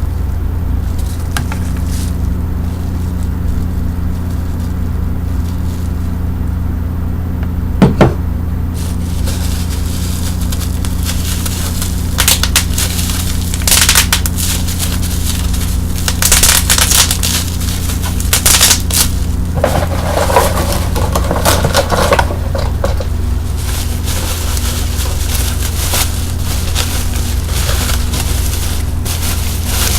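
Bubble wrap and plastic packaging being handled: scattered crinkles and scrapes with sharp pops, one about eight seconds in and more in clusters from about twelve to twenty-three seconds. A steady low hum runs underneath throughout.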